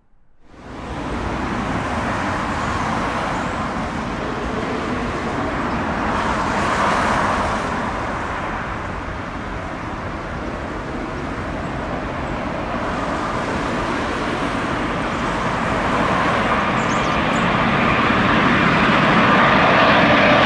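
British Airways Boeing 747-400 on final approach: the steady rush of its four Rolls-Royce RB211 jet engines, growing louder toward the end as the jet draws nearer.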